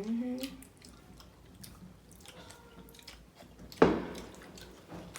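Close-up chewing and mouth sounds of someone eating sushi, with faint small clicks. A short bit of voice sits at the very start, and one sharp knock lands a little before four seconds in.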